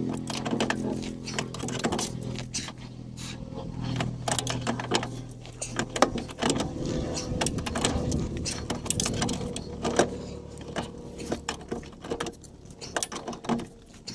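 Hand socket ratchet clicking in short back-and-forth strokes as a bolt is wound, with a few louder metallic knocks.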